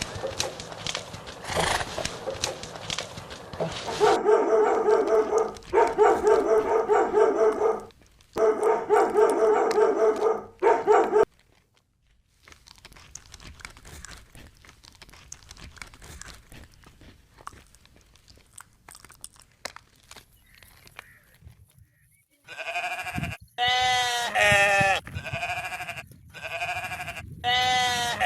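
Bleating livestock: long calls in groups through the first ten seconds or so, a quieter stretch of scattered knocks and rustling in the middle, then more loud bleats with a quavering pitch near the end.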